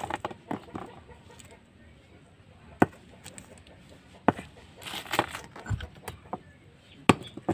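A plastic bag rustling around a block of ice as it is handled and set down, with a few sharp single knocks, the loudest about three seconds in and another near the end.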